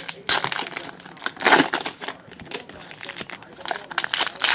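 Trading-card pack wrappers crinkling as packs are handled and opened, in irregular bursts, loudest about one and a half seconds in and near the end.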